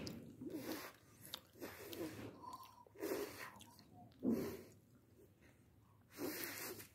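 A toddler chewing potato chips, heard as several short, irregular bursts of munching and breathy noise with quiet gaps between.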